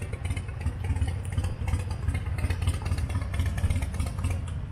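Motorcycle engine idling: a steady low, pulsing rumble.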